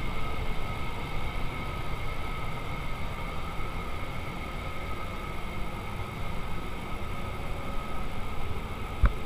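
Steady hum and rush of a paint spray booth's ventilation running, with two faint steady tones in it. A single short knock sounds near the end.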